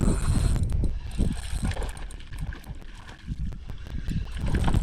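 Fishing reel being cranked to bring in a hooked fish, its gears ticking, with rough wind noise buffeting the microphone.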